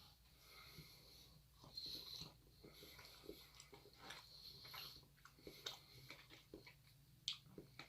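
Faint chewing: many small, irregular wet mouth clicks of someone eating, with a few soft breaths.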